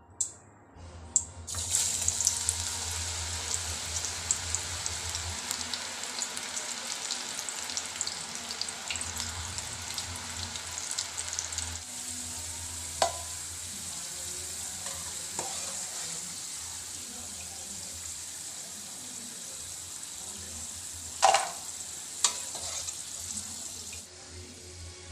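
Slices of kanda (elephant foot yam) deep-frying in hot oil: a steady, dense sizzle and crackle that starts about a second and a half in. A few sharp knocks, likely a utensil against the pan, come in the middle and near the end.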